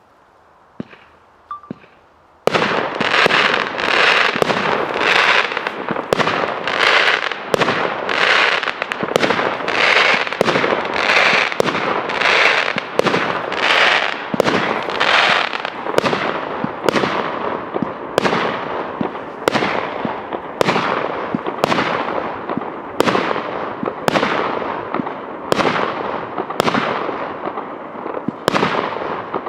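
A consumer fireworks cake, the JFC 30-100/01 "Kaifuem" battery, firing its shots. After a couple of faint ticks, the shots start suddenly about two and a half seconds in and follow one another steadily, roughly one every two-thirds of a second. Through the first half a constant hiss fills the gaps between them.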